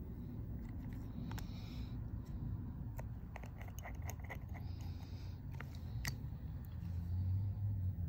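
Small, sharp clicks and taps of tools and small parts being handled during phone repair work, over a steady low rumble that grows a little louder near the end.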